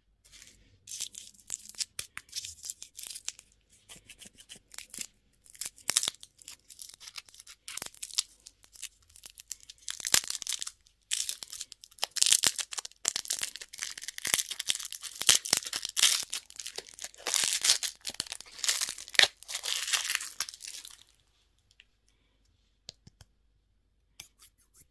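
Candy packaging being torn open and crinkled by hand, a dense run of crackling and tearing with many sharp clicks that stops about 21 seconds in.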